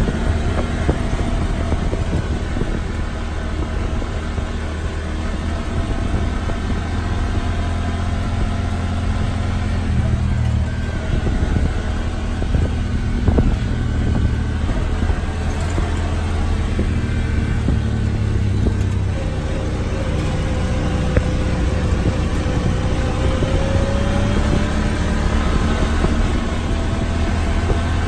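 Side-by-side off-road vehicle's engine running steadily under way on a dirt road, heard from inside its cab as a loud low drone with road noise.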